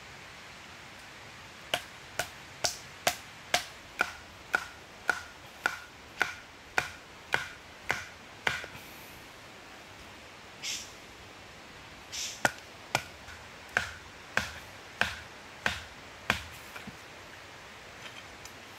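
A tool chopping into wood with sharp, evenly spaced strikes about two a second, each with a short ring. About fourteen strikes, a pause of about four seconds with a couple of softer scraping sounds, then about seven more strikes.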